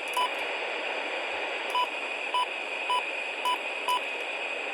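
Midland WR-100 weather alert radio beeping briefly six times at uneven intervals as its keypad buttons are pressed while the SAME codes are being set. A steady hiss of radio static runs underneath.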